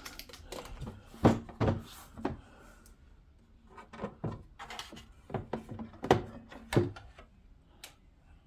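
Hard plastic parts of a cool-mist humidifier being handled, fitted and set down: irregular clicks and knocks, the loudest about a second in and again twice around six to seven seconds in.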